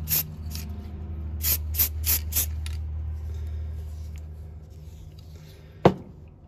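Aerosol spray can of black primer sprayed in a string of short hissing bursts over the first three seconds or so, above a low steady hum that fades away. A single sharp knock comes near the end.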